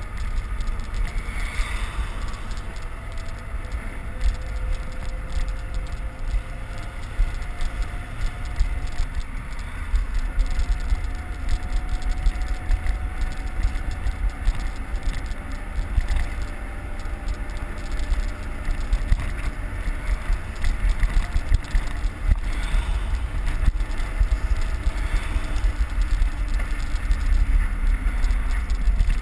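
Wind buffeting the microphone of a camera on a fast-moving bicycle, a steady low rumble mixed with tyre and road noise. Faint engine tones from the traffic ahead slowly rise and fall.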